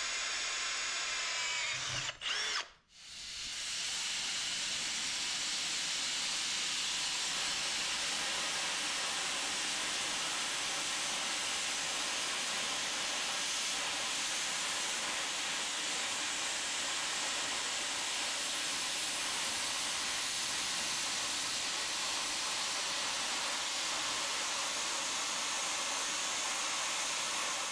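A cordless drill whines briefly as it bores a pilot hole in steel plate. About three seconds in, a plasma cutter starts and hisses steadily as its torch cuts a circle through the plate on a pivot jig.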